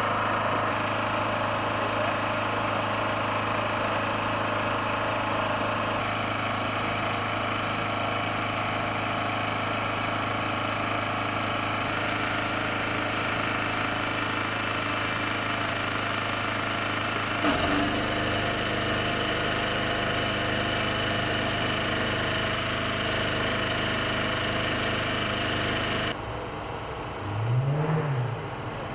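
Portable petrol generator engine running steadily with a low hum. Its sound shifts abruptly about two-thirds of the way in and drops in level near the end. Just before the end a short hum rises and falls in pitch.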